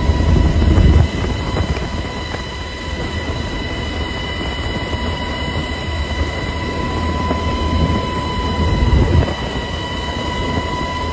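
Heavy, continuous rumble of wind and sea on a yacht in big waves, surging louder in the first second and again around nine seconds in. A steady high whine runs underneath.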